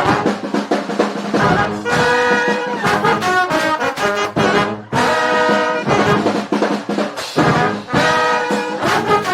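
Live street brass band playing a loud, rhythmic tune, horns over percussion, with a short break in the phrase about halfway through.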